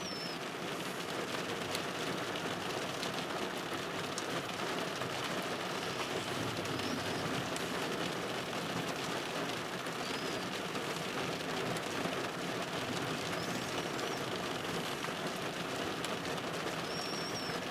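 Steady rain falling, heard from inside a car, with faint ticks of drops and a few faint short high chirps.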